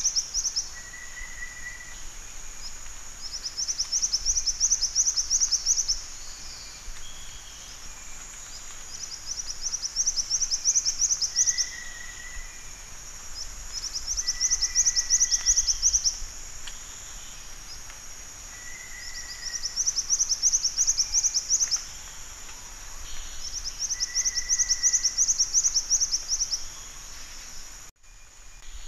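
Black-winged flycatcher-shrike singing: a high-pitched, rapid trill of about two to three seconds, repeated every five seconds or so, over a steady high hiss.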